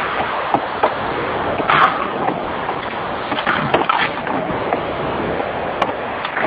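Steady hiss and rumble inside a car, picked up by a hidden surveillance bug, with a few scattered knocks and clicks, the loudest about two seconds in.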